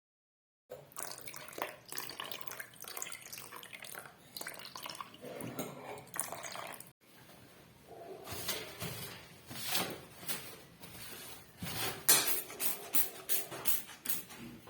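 Washing at a sink: water splashing, with repeated clinks and knocks of hard items being handled, growing busier near the end.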